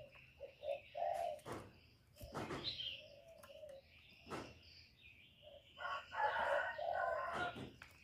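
Male spotted dove cooing in low notes, a few short ones early on and a longer, louder coo about six seconds in, with scattered sharp knocks in between.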